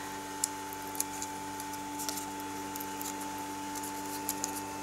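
A few short sharp ticks and faint rustles of fingers handling adhesive foam pads and their paper backing strip, over a steady low electrical hum.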